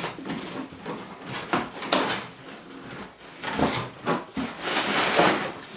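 A toy playset's box being opened and its contents unpacked by hand: scattered knocks and scrapes, then a longer rustle of packaging about four and a half seconds in.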